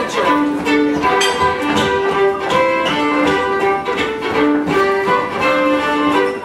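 A fiddle playing a lively dance tune in steady, evenly pulsed notes, with faint knocks on the beat.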